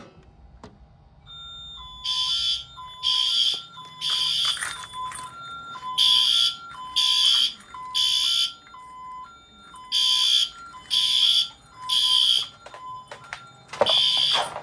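Fire alarm horn on a Honeywell Vista 20P fire system sounding in alarm, in the temporal-three pattern: three blasts about a second apart, a pause, then three more, repeating. A quieter two-note electronic tone steps up and down beneath it.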